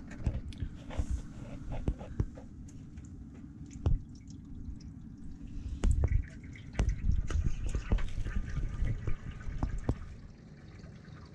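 Warm water poured from a large plastic bottle into a radiator's filler neck, with dripping and splashing and scattered clunks of the bottle against the radiator, the loudest about six seconds in. The radiator has a patched puncture and might still be leaking.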